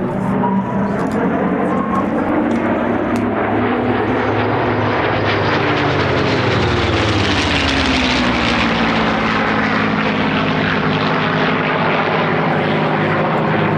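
Piston-engined WWII warbird making a pass. The propeller-engine drone drops in pitch as it goes by, and the sound is fullest about halfway through.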